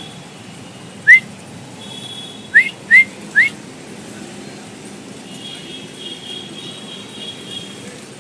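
Four short rising whistles calling the puppies: one about a second in, then three in quick succession about a second and a half later. Faint high steady tones follow near the end.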